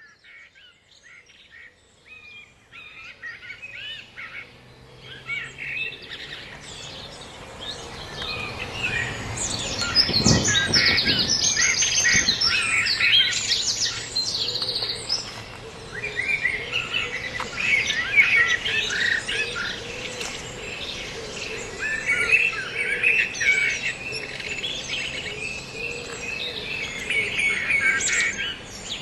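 A chorus of many songbirds chirping and singing together, with quick trills among the calls. It fades in over the first several seconds and then stays busy and fairly loud.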